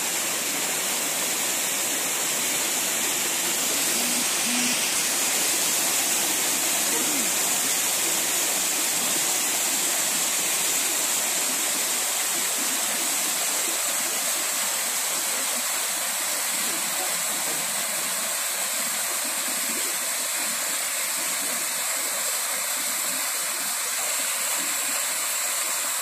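Small waterfall pouring in several strands over stepped rock ledges into a shallow pool: a steady rush of falling and splashing water.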